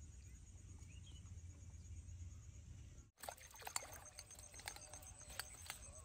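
Faint outdoor ambience: a low rumble and a faint high, steady pulsing trill. After a sudden cut about halfway through, a run of short, sharp clicks and taps comes in as a small fish is landed on a hook line.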